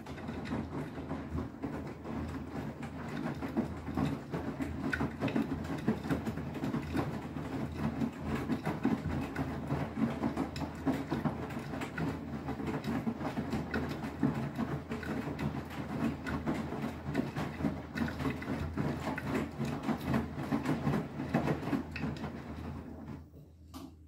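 Beko WTK104121W washing machine drum turning a wet, sudsy load in the main wash: the motor runs while water sloshes and clothes tumble. The sound stops about a second before the end.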